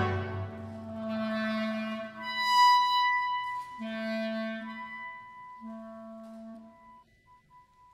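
Concert wind band coming off a loud chord into a quiet passage: solo clarinet and a few soft held wind notes. The last note fades away to near silence near the end.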